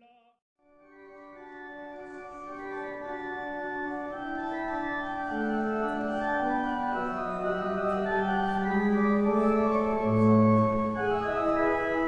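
Organ music fading in and growing louder: slow, sustained chords, with a low bass note coming in near the end.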